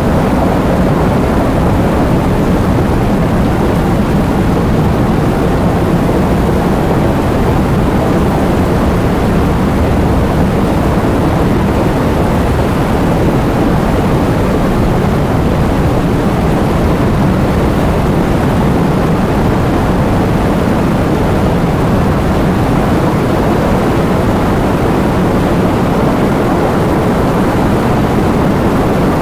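Heavy rain with wind: a loud, steady, deep rushing noise with no breaks or separate drops standing out.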